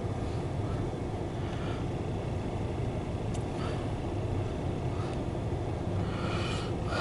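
Steady low vehicle rumble heard from inside a car's cabin.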